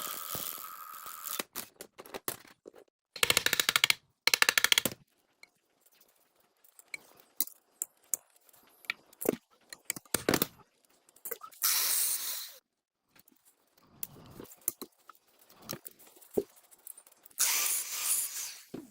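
Cut-together workshop sounds of tools working on metal: scattered sharp clicks and knocks, two bursts of rapid rattling about three seconds in, and two bursts of hissing, one midway and one near the end.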